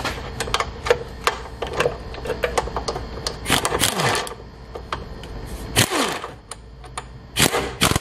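Metal clicks and clinks of tools and sockets against the suspension, then an impact wrench driving in a lower control arm mounting bolt in short bursts, each one winding down with a falling whine, twice, with another brief burst near the end.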